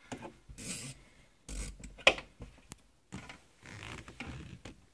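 Rough rubbing and rasping scrapes at the top edge of a car windshield, in three uneven spells, with one sharp click about two seconds in.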